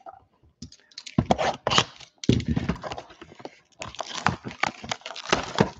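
Plastic shrink-wrap being torn and crinkled off a sealed trading card box: a dense run of crackles and short rips that starts about a second in.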